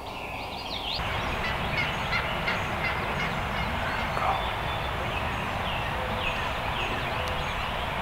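Wild turkey gobbling faintly over a steady hiss, with faint chirps from songbirds.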